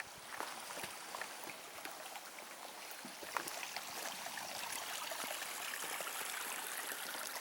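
A small mountain stream running, its rushing hiss growing gradually louder, with scattered faint footstep clicks on the trail.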